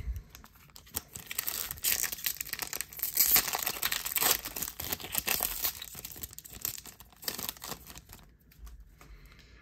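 A foil trading-card pack wrapper being torn open and crinkled by hand: a long, irregular crackling that dies away near the end.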